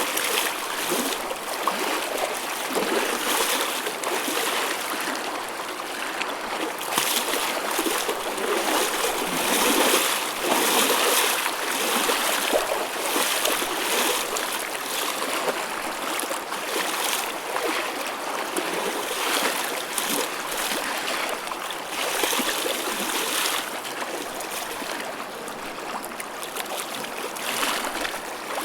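Water waves washing and splashing steadily, with many small splashes and no pauses.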